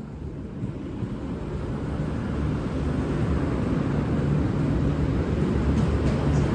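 V/Line VLocity diesel multiple unit pulling into the platform: a low diesel engine rumble with wheel and rail noise, growing steadily louder as the train comes closer.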